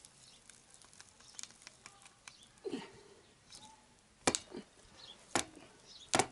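Ratchet and strap wrench being heaved on a stuck oil filter on a Yamaha XJ900S engine: scattered light ticks, then a few sharp metallic clicks and knocks from about four seconds in.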